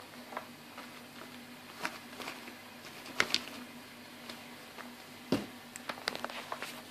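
Scattered light clicks and taps of a cardboard powdered-sugar carton being handled and tapped over a ceramic bowl as the sugar is shaken out, with one duller thump about halfway through and a run of small ticks near the end, over a faint steady hum.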